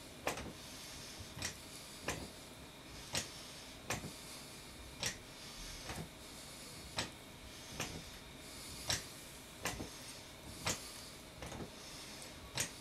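Stepper exercise machine clicking with each step, a sharp click about once a second in a slightly uneven rhythm.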